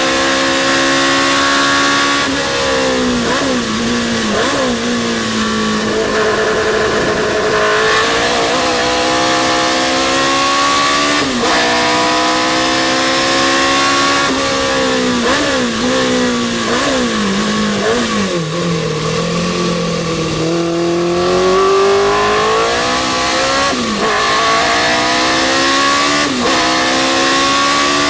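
Historic sports racing car's engine at racing speed, its pitch climbing through each gear and dropping sharply at each upshift. There are quick rising blips on downshifts into corners, and the car keeps running at full song throughout.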